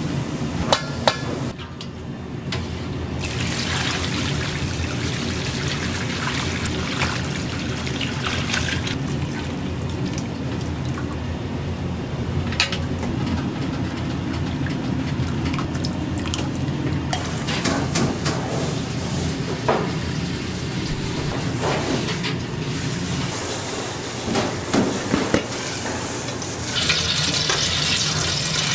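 Dark kombu-and-bonito stock pouring and dripping as the spent kombu and bonito flakes are pressed in a steel mesh strainer over a stainless bowl, with scattered sharp metal clinks over a steady kitchen hum. Near the end a hissing sizzle starts as ground pork goes into a hot oiled wok.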